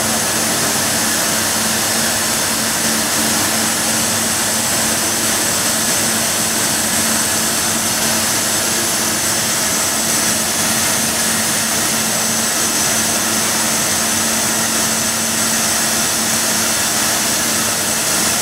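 Horizontal machining centre (Hyundai-WIA WH 63 TM) running with its spindle head traversing: a steady whirring hiss over a constant low hum.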